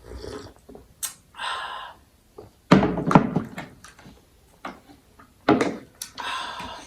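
Several dull thunks and knocks of dishes and drink cans being handled and set down on a table, the loudest about three seconds in, with short handling noises in between.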